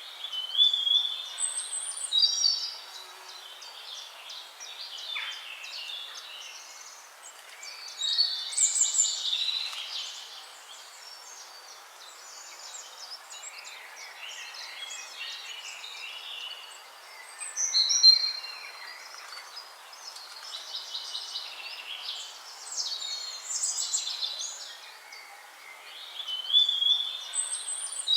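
Songbirds singing in a series of varied chirping and trilling phrases, several seconds apart, over a faint steady hiss.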